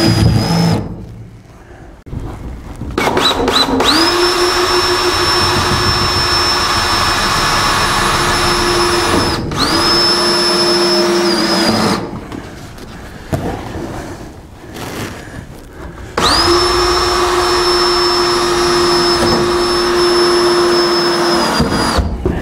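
Cordless drill driving screws into 2x4 wall framing to fasten a metal nest box. The motor spins up to a steady whine for runs of several seconds: a short burst at the start, a few quick blips, then three long runs with pauses between.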